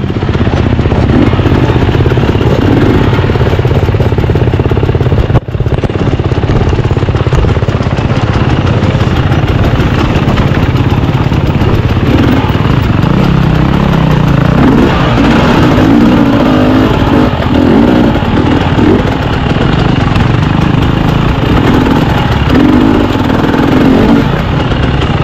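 Dirt bike engine running as the bike is ridden along a trail, its pitch rising and falling with the throttle, with a brief sudden drop about five seconds in.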